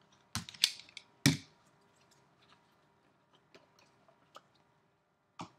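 Box cutter slicing the seal of a cardboard trading-card box, with a few sharp scraping clicks in the first second and a half. Faint taps and rustles follow as the box is pulled open and handled, and one louder click comes near the end.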